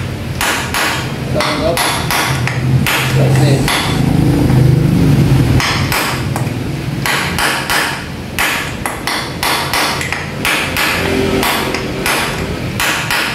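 Ball-peen hammer striking a punch held against the aluminium gearbox cover of a Yamaha NMAX scooter. The metal strikes are repeated and sharp, a few a second, with a short pause about four seconds in.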